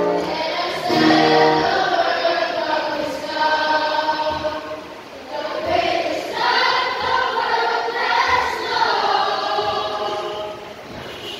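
A choir of voices singing a church hymn, with steady held keyboard notes under the singing in the first couple of seconds.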